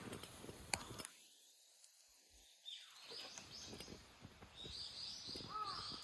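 Outdoor birdsong: small birds chirping, with scattered crackles and snaps. The sound drops away for about two seconds in the first half, and a crow caws a couple of times near the end.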